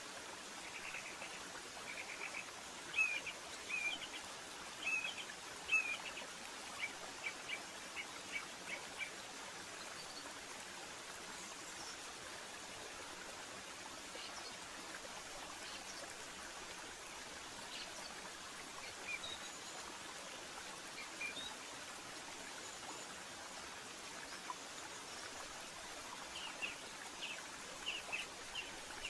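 Small bird chirping: quick runs of short, high chirps in the first several seconds and again near the end, with a few scattered chirps in between, over a steady background hiss.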